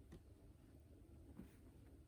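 Near silence: indoor room tone with a couple of faint, short clicks.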